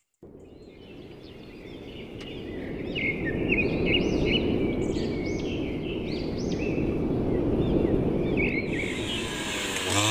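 Outdoor ambience of birds chirping, with repeated short high calls over a steady low rumble that fades in over the first few seconds. A hiss rises near the end.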